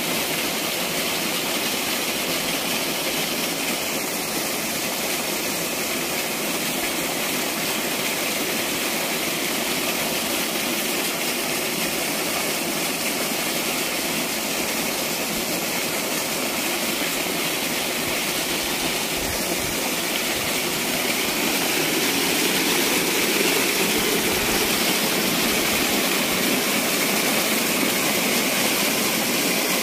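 Water gushing from a solar-powered pump's outlet pipe and splashing into a concrete tank: a steady rushing noise that grows slightly louder about twenty-two seconds in.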